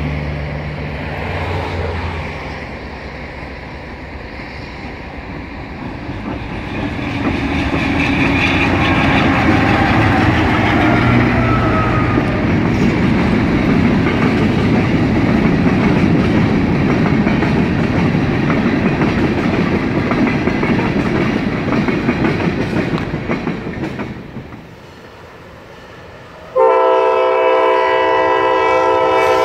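A freight train's covered hopper cars roll past, their steel wheels clattering and rumbling on the rails. Near the end the diesel locomotive sounds its multi-chime air horn in one long, steady blast.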